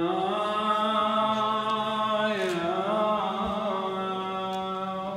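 Yazidi devotional chant: long, held notes that glide slowly in pitch over a steady, lower drone note.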